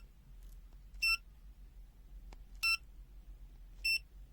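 FUYI FY129C multimeter's buzzer giving short beeps as its select key is pressed to step through the functions toward diode test: three brief identical beeps, spaced one to one and a half seconds apart.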